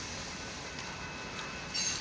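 Union Pacific freight train's boxcars rolling past the crossing, a steady noise of wheels on rail, with a faint high squeal coming in and a brief sharper squeal near the end.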